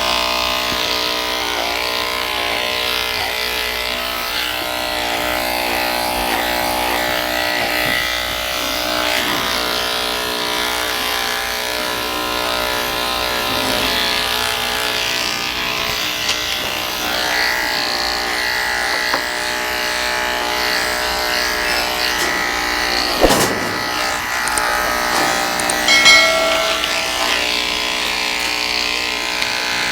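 Electric dog grooming clippers buzzing steadily while shaving a poodle's coat short to check for ticks, with background music. A sharp knock sounds about two-thirds of the way in, and a brief clatter follows a few seconds later.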